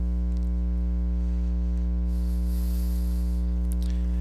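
Steady electrical mains hum, a low buzz with many evenly spaced overtones, under a faint hiss.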